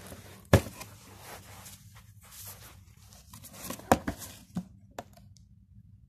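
A cardboard box and its packaging being handled and opened: rustling and tearing, with sharp knocks about half a second in and near four seconds. The handling stops about five seconds in.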